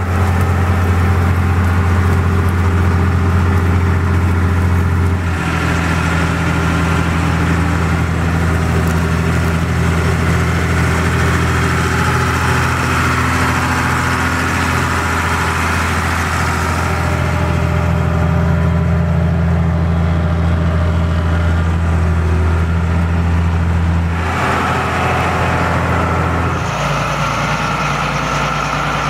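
Schlüter Eurotrac 1700 LS tractor's diesel engine running steadily as it pulls a three-tine subsoiler through the ground. The engine note changes abruptly about five seconds in and twice more near the end.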